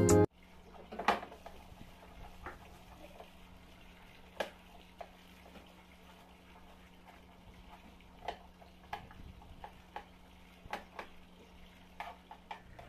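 Knife cutting an onion on a plastic cutting board: scattered soft knocks at irregular intervals a second or more apart, over a faint steady hum.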